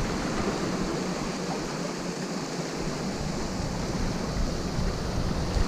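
Steady rushing noise of sea waves washing against the shore.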